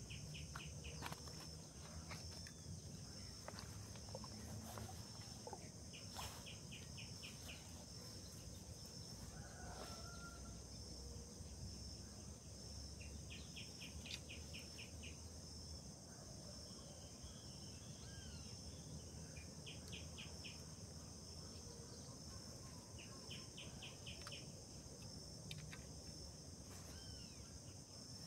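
Quiet outdoor ambience dominated by a steady, high insect chorus, with short bursts of rapid ticking trills repeating every few seconds and a few faint bird chirps.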